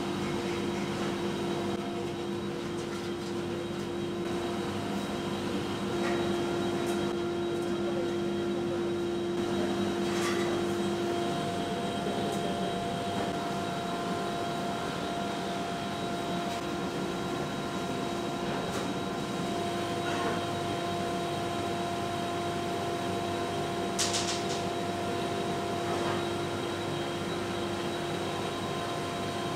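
A steady mechanical hum with several constant tones, its tone shifting slightly about a third of the way in, with a few faint clicks.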